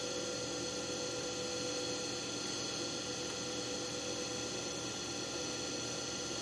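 Steady hum with several thin, steady high tones and no distinct clicks or knocks.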